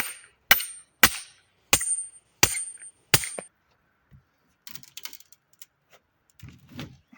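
A hammer striking metal in a steady rhythm, six blows about two-thirds of a second apart, several leaving a thin high ring. Lighter clicks and a few low knocks follow near the end.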